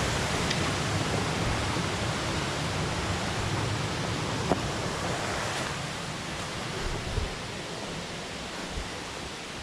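Water pouring over a small dam's falls, a steady rushing that eases off a little in the second half, with a few faint knocks.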